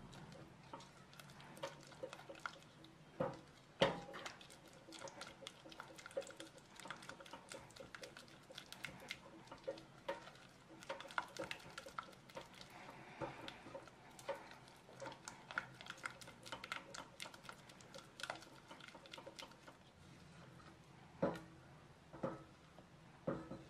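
Silicone spatula stirring and scraping thick caramel filling around a stainless steel pot: soft scrapes and small clicks against the pot, with a few louder knocks about three to four seconds in and several more near the end.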